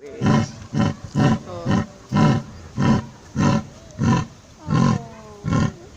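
A large animal calling in a steady series of loud, short grunts, about ten in six seconds.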